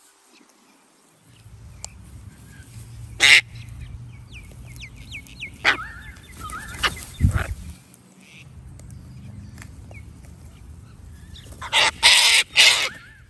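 Sulphur-crested cockatoos in a feeding flock giving short, harsh screeches, one at a time a few times and then several together near the end, with fainter high chirps in between.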